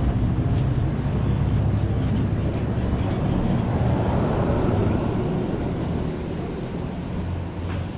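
A car drives past close by, its engine and tyres swelling about halfway through and then fading, over a steady rumble of street traffic.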